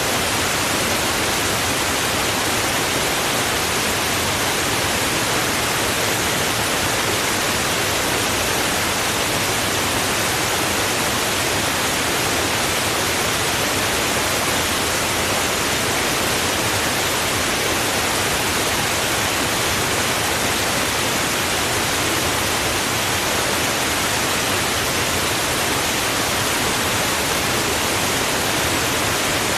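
Running water rushing steadily: an even hiss with no splashes, gurgles or changes in level.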